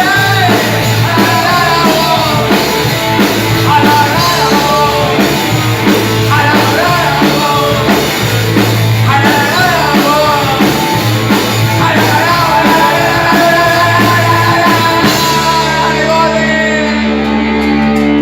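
Punk rock band playing with sung vocals over guitar and drums. Near the end the drums stop and a held chord rings on as the song closes.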